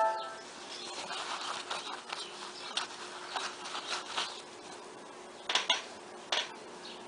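Scattered light clicks and taps with soft rustling from handling small objects, with two sharper clicks about five and a half and six and a half seconds in, over a faint steady hum.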